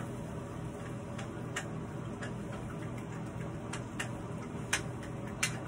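A spatula clicking and tapping irregularly against a frying pan as vegetables are stirred, over a steady background hum; the clicks come more often in the second half.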